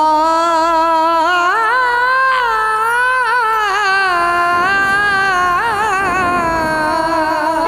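Male qawwali singer's voice singing a wordless alaap: long held notes with a slow waver, gliding upward about two seconds in and broken by quick ornamental turns near the middle and again around six seconds in.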